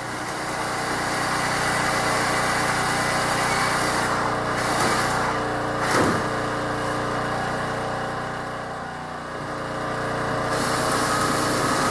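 A small power tool's motor running steadily. Its level swells and eases and dips briefly about nine seconds in, with one short sharp knock about six seconds in.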